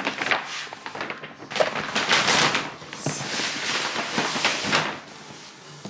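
Paper shopping bag rustling and crinkling as a large cardboard box is slid out of it, dying away about five seconds in.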